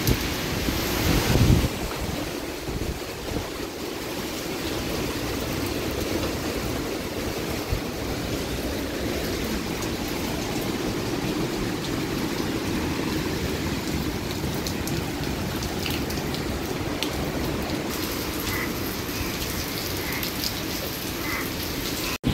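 Heavy hurricane rain and wind: a steady, rushing downpour, louder for a moment in the first second or two.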